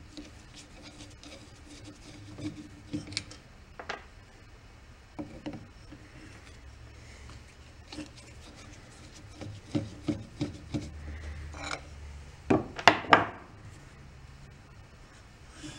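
Screwdriver working small screws out of an old outboard's lower-unit gear housing: scattered small metal clicks and scrapes, with a few louder metal clunks on the workbench near the end.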